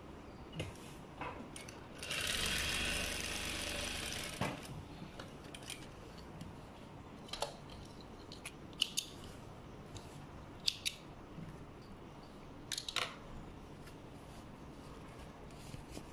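Industrial sewing machine running in one short burst of about two seconds, stitching a small dart. Afterwards, scattered light clicks and ticks as the fabric and thread are handled.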